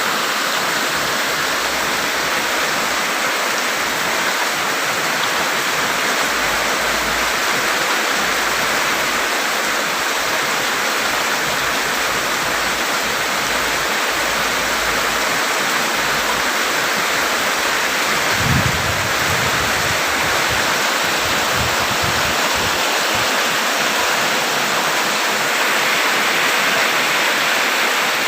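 Heavy rain falling steadily, a dense even hiss. A brief low thump about two-thirds of the way through.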